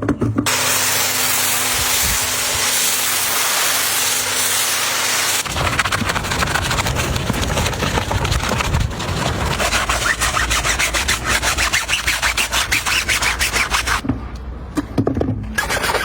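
A steady spraying hiss for about five seconds, then brisk rhythmic scrubbing strokes, several a second, that pause briefly near the end before starting again.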